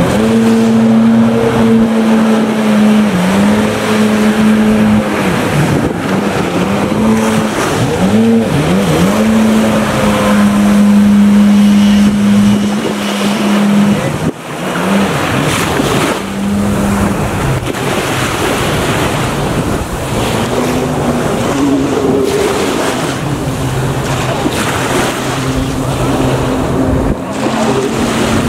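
Jet ski engine running hard, its pitch dipping and climbing again several times, over the hiss of spray and choppy water. The sound drops away briefly about halfway through.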